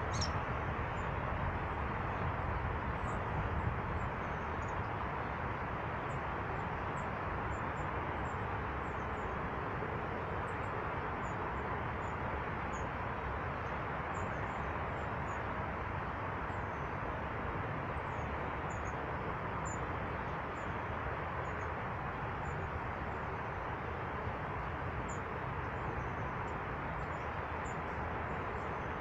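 Small birds, long-tailed tits, giving many short, very high, thin calls scattered throughout, over a steady rushing background noise.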